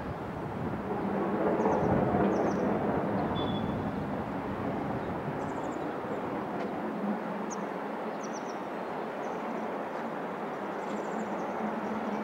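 Distant steam-hauled train approaching from far down the line, heard as a steady low rumble that swells briefly about two seconds in, with small birds chirping now and then.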